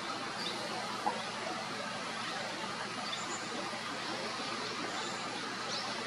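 Steady forest background hiss with faint, brief high bird chirps scattered through it, and one short sharp sound about a second in.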